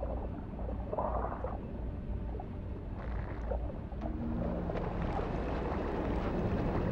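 Low, steady underwater rumble, with a brief swell about a second in and a couple of held deep tones about four seconds in.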